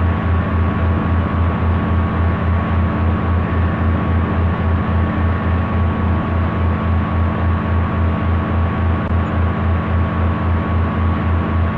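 Steady low mechanical drone with a deep throb pulsing about four times a second and a faint steady higher tone above it.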